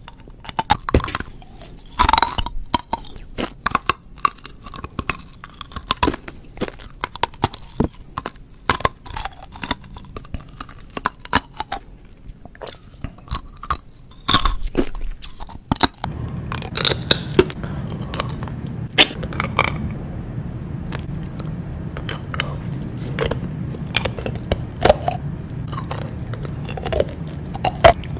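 Rock candy, sugar crystals on a wooden stick, being bitten and chewed close to the microphone: irregular sharp crunches and crackles. From a little past halfway a steady low hum runs under the crunching.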